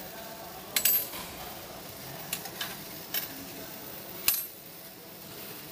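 A 50 W fiber laser working a 0.2 mm silver sheet: a faint steady hum broken by sharp ticks and crackling snaps where the beam strikes the metal. There is a double snap about a second in, and the loudest snap comes just past four seconds.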